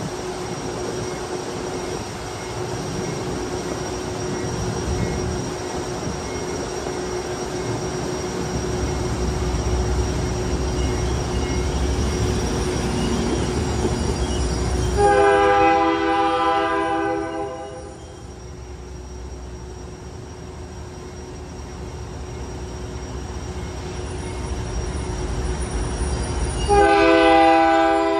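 An approaching CN freight locomotive's air horn sounds a chord in one long blast about halfway through, and starts another near the end, over a steady low rumble.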